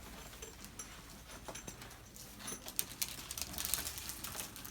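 Faint rustling and a run of small sharp clicks and taps from people shifting about, sparse at first and busier over the last two seconds, over a low steady room hum.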